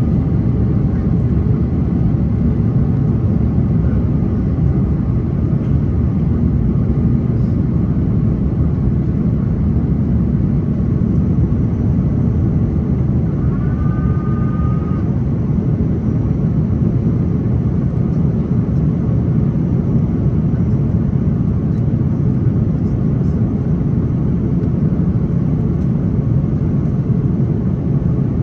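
Steady, loud cabin noise of an Airbus A330-900neo in flight, the rush of air and its Rolls-Royce Trent 7000 engines heard from inside the cabin during the climb after takeoff. A brief two-tone chime sounds about 14 seconds in.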